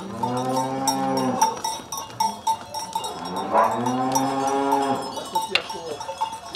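Cows mooing twice, each a long low call that swells and falls away, over the steady clanking of cowbells as the herd walks.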